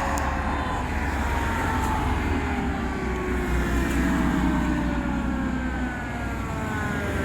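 Fire engine's mechanical Federal Q2B siren winding down, its pitch falling slowly and steadily, over the low steady running of the truck's Detroit Diesel 8V71 two-stroke V8.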